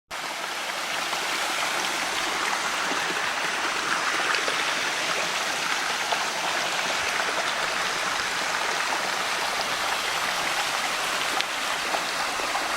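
Steady rush of water from a rainforest stream and its waterfall.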